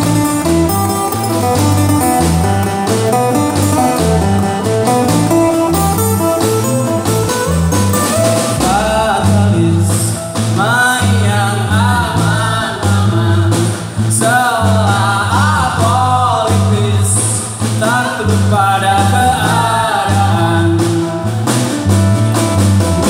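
Live band performance led by acoustic guitars, with a voice singing from about eight seconds in.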